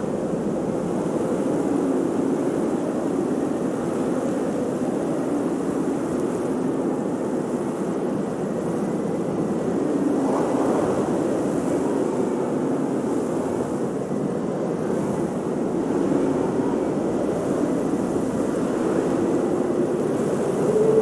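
Blizzard wind howling: a steady rushing with a faint wavering pitch that rises and falls, swelling higher about halfway through.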